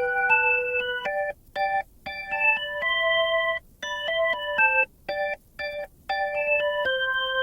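Background music: a melody of short keyboard notes and chords, broken by brief pauses.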